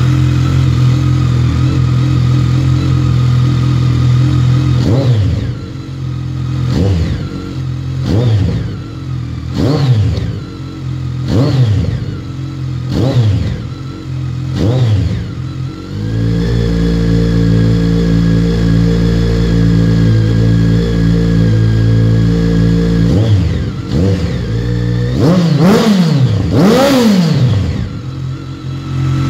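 BMW K1300R's inline-four engine running through an Arrow aftermarket silencer: it idles, is blipped about seven times in quick succession, is held at steady raised revs for several seconds, then blipped twice more near the end before settling back to idle.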